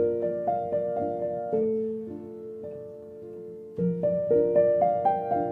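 Solo piano music: a run of single struck notes over low chords, then a held chord that fades away, and a new phrase of notes starting a little before the end.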